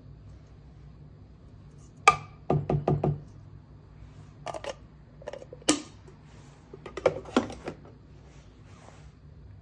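Knocks and taps as coffee-grinding gear is handled: a quick run of four or five knocks about two seconds in, then scattered single taps and another short cluster of taps a little after halfway.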